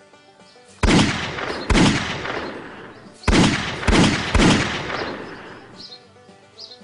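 Five loud gunshot-like bangs in two groups, two and then three, each dying away over about a second, over background music.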